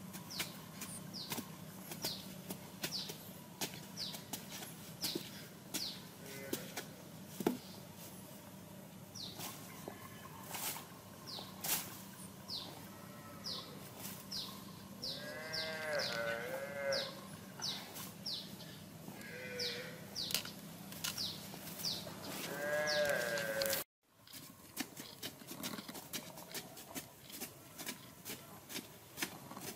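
Sharpened bamboo poles being stabbed into dry soil for digging, a run of dull knocks and scrapes, under short high chirps repeating about once a second. Several wavering bleats from a farm animal come in the middle and again later, and near the end the sound cuts out for a moment.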